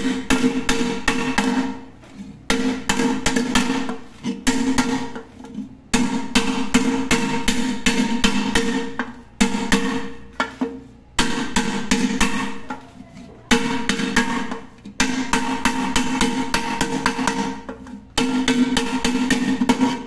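Rapid hammer blows on the bulged base of a pressure cooker, knocking the swollen metal flat, with the pan ringing under the strikes. The blows come in about nine bursts of a second or two each, with short pauses between them.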